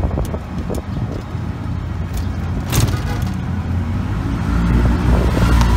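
Road traffic noise, with a motor vehicle's engine running close by and getting louder near the end.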